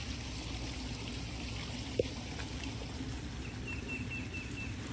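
Steady water noise in a pond, with a single sharp click about two seconds in and a short run of about six quick high bird chirps near the end.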